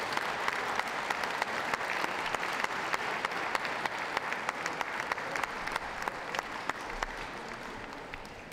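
Audience applauding, a dense patter of hand claps that gradually fades toward the end.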